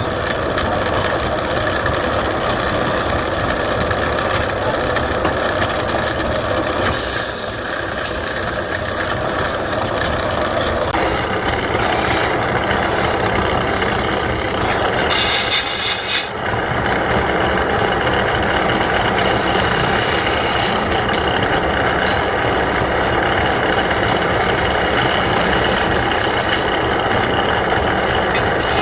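Wood lathe running, with a turning tool scraping and cutting the spinning wood: a steady, dense rasping noise that briefly drops about sixteen seconds in.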